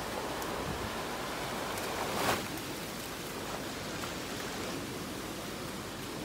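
Bono tidal bore surge rushing through trees and over a riverbank: a steady rush of churning floodwater, with a brief louder swell a little over two seconds in.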